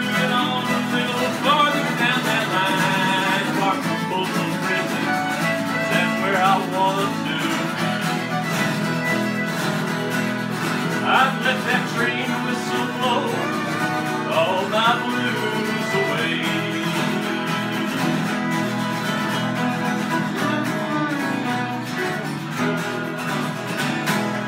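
Fiddle and acoustic guitars playing a country-bluegrass instrumental break, the fiddle carrying a sliding lead line over steadily strummed guitars.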